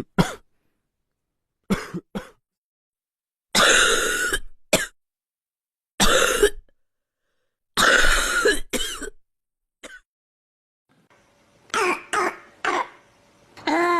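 Recorded example coughs of different kinds: a few short single coughs near the start and around 2 s, then three longer, harsher coughs around 4, 6 and 8 s, and after a change of recording a quick run of four or five coughs near the end.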